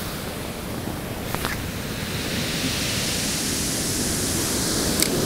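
Surf breaking and washing up a sand beach: a steady rush of waves, with two faint clicks, one about a second and a half in and one near the end.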